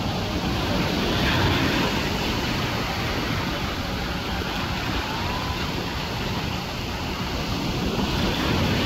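Ocean surf rushing and breaking, with wind buffeting the microphone into a steady low rumble.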